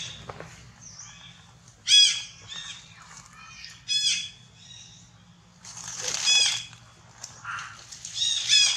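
Baby long-tailed macaque giving short, high-pitched squeals, four loud ones about two seconds apart with fainter chirps between.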